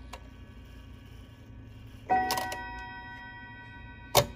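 Chime rods of a Hermle 1050-020 triple-chime clock movement struck by its hammers about two seconds in, two quick strikes ringing together as a chord and slowly fading. A single sharp click follows near the end.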